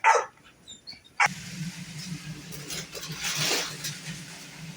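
Chopped steak frying in a pan, a steady sizzling hiss that swells and fades, over a steady low hum, starting suddenly about a second in.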